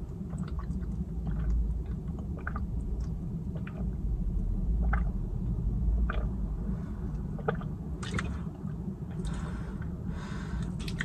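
Close-miked chewing of pepperoni and jalapeno pizza, with soft wet mouth sounds and scattered small clicks over a low rumble. Two short stretches of soft rustling hiss come in the last few seconds.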